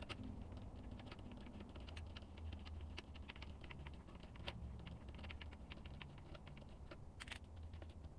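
Faint, quick clicking of a screwdriver turning a screw in a stand fan's plastic neck, with one sharper click about seven seconds in, over a low steady hum.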